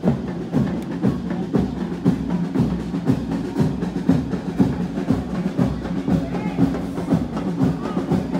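Parade drums playing a steady rhythmic beat, with a low steady tone underneath.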